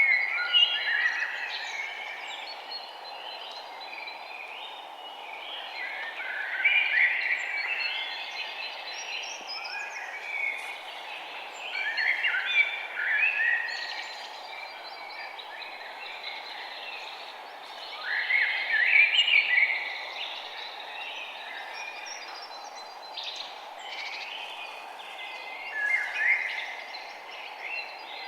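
Songbirds chirping and singing in bursts of a few seconds, one burst roughly every six seconds, over a steady background hiss.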